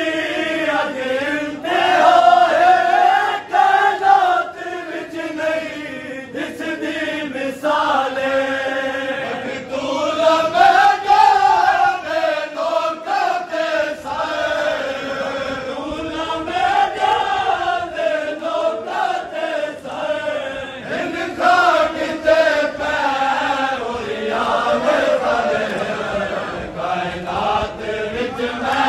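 Male voices chanting a noha, a Shia mourning lament for Imam Hussain, in long phrases that rise and fall in pitch, with a recurring beat of sharp strikes.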